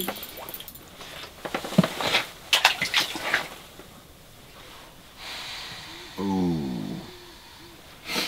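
Light clicks and rustling from a small spinning reel and fishing line being handled, then about six seconds in a short voice-like sound that falls in pitch.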